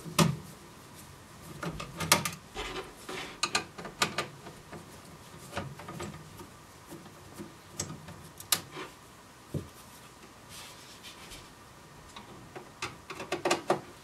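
Screwdriver working the screws out of the metal back panel of a Sony CDP-CX350 CD changer: scattered clicks, taps and short scrapes of metal on metal, with a quick run of clicks near the end.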